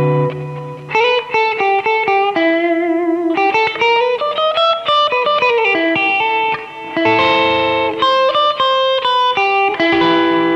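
2020 Epiphone Les Paul Custom electric guitar, amplified and played on its rhythm pickup: a single-note lead line with string bends and vibrato, then held chords ringing out about two-thirds of the way through and again near the end.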